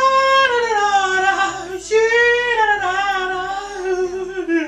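A man singing two short unaccompanied phrases of a Chinese song in a high voice, each phrase starting on a held note and sliding down in pitch, the second beginning about two seconds in.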